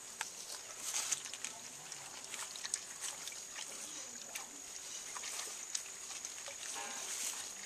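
Hands moving through water and flower petals in large plastic basins: soft sloshing with many small splashes and clicks, over a steady high hiss.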